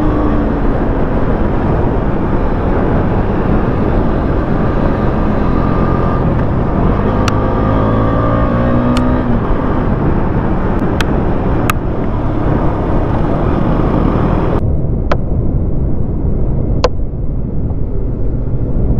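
Wind rushing over a motorcycle rider's helmet at speed, with the single-cylinder engine of a Husqvarna Vitpilen 250 running underneath, its pitch rising and falling with the throttle. A few sharp clicks come through, and the sound turns duller about three-quarters of the way in.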